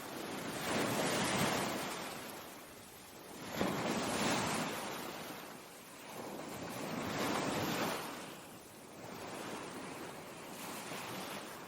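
Ocean surf: waves washing in, the noise swelling and fading in slow surges about every three seconds, with a sharper break about three and a half seconds in.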